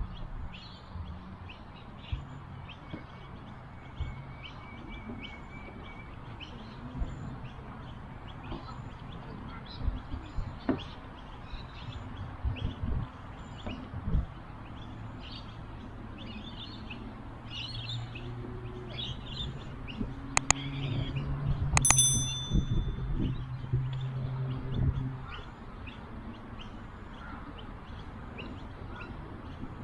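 Many small birds chirping over and over, above a low steady rumble that swells in the second half. There are a few knocks, and a short ringing ding about 22 seconds in.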